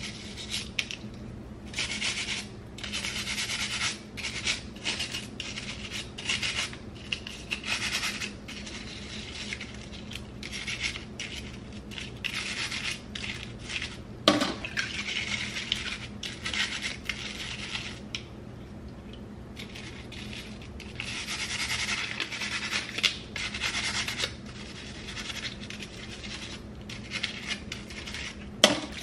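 A stiff bristle scrub brush rubbed back and forth against a wet hair tool, making quick, irregular bursts of scratchy brushing. There is a sharp knock about halfway through and another near the end.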